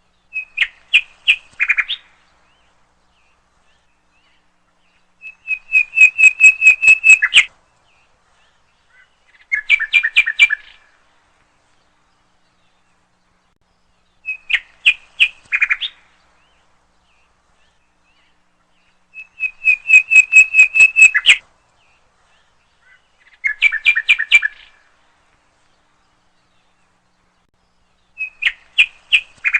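Nightingale singing: seven short phrases of rapid repeated notes, about one every four to five seconds with silence between. Three phrase types come round in the same order.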